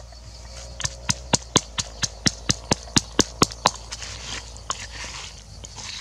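Wooden pestle pounding salt and chopped green leaves in a wooden mortar: a run of sharp knocks, about four a second, for some three seconds, then a few slower strokes.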